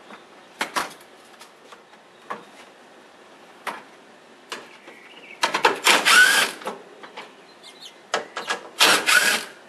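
Hand ratchet with a socket clicking in two quick runs, one about halfway through and one near the end, as the 10 mm bolts holding the grille are turned out. Before that come light clicks and taps of plastic clips being prised out.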